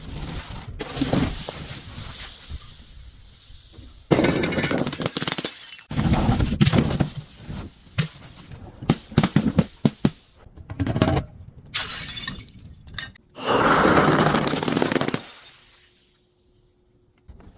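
Glass bottles being broken and crushed: a series of crunching, shattering bursts, some sharp and short, others lasting a second or two, with brief gaps between them.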